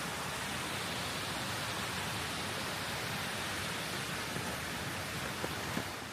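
Steady rushing of a mountain stream and waterfall, an even hiss of running water.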